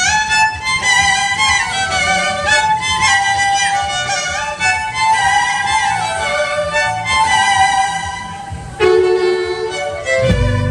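Two violins play a melody together in harmony, with slides between notes.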